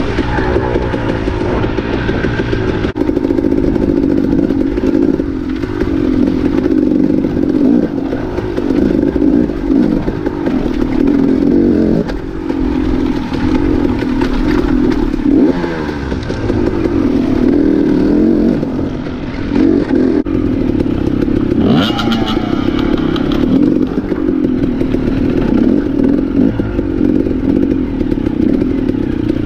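Dirt bike engine heard close up while riding, its pitch rising and falling as the throttle is worked on and off, with a sharp rev about two-thirds of the way through.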